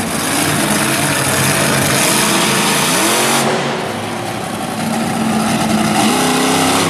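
Monster truck engine revving hard, its pitch rising and falling as the truck drives and turns on the dirt, easing off briefly about four seconds in.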